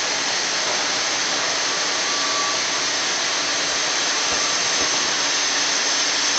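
Sawmill bandsaw running with a steady, loud, hissing whir.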